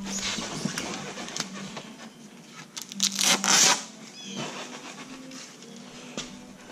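The door of a new Magic Chef compact fridge being pulled open and pushed shut, with rustling and light knocks. The loudest rustle comes about three seconds in, as the door opens.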